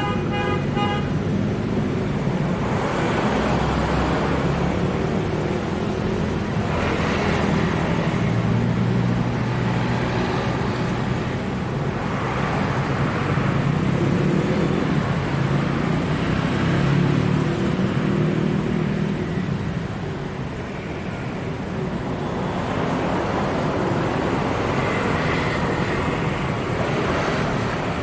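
Road traffic: a steady run of vehicle engines and tyres, swelling every few seconds as vehicles pass close by. A pulsing vehicle horn ends about a second in.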